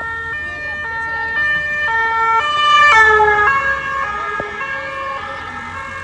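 Two-tone emergency vehicle siren alternating rapidly between a high and a low note, growing louder to a peak about three seconds in, then dropping in pitch as the vehicle passes.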